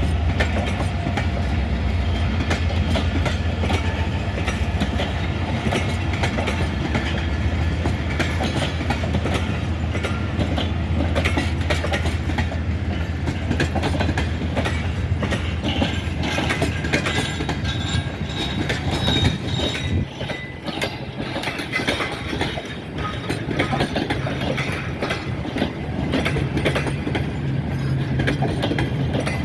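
Passenger train coaches rolling past, their wheels clattering steadily over the rail joints, with a low drone that fades about two-thirds of the way through.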